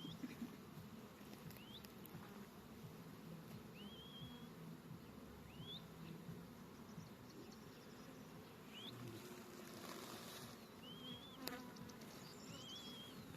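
Honeybees buzzing around an opened hive: a faint, wavering low drone.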